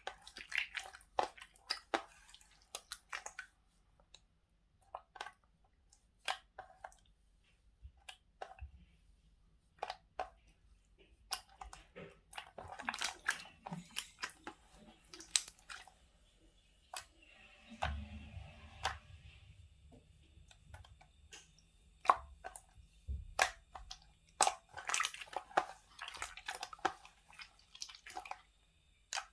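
Irregular small clicks, taps and handling noises close to the microphone, in clusters with short gaps. About eighteen seconds in there is a brief low rumble with some hiss, and a single low thump follows a few seconds later.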